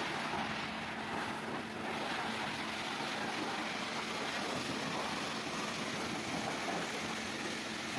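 Steady hiss of a high-pressure car wash water spray, with a low steady hum underneath.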